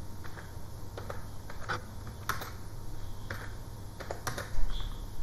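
Typing on a computer keyboard: irregular key clicks, a few a second, with a low thump near the end.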